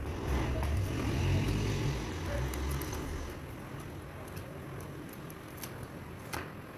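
Handling of a keypad mobile phone's plastic housing, LCD and battery as they are fitted back together, with a few sharp plastic clicks, the clearest near the end. Under it runs a low rumble, loudest in the first three seconds.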